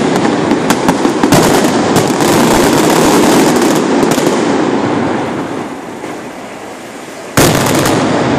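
Fireworks display: rapid bangs over a dense crackling that fades away over the second half, then breaks in again suddenly and loud near the end.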